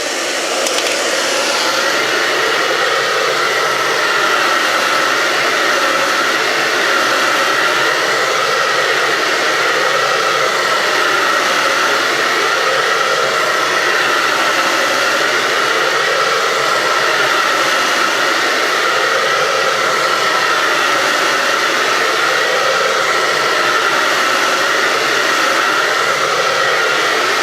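Electric hot-air blower running steadily at full power with a constant whine over the rush of air, heating the iPad 2's glass to soften the adhesive holding the digitizer. It cuts off at the end.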